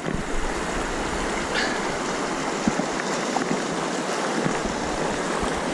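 Fast river water rushing and churning over boulders in a riffle, a steady close rush.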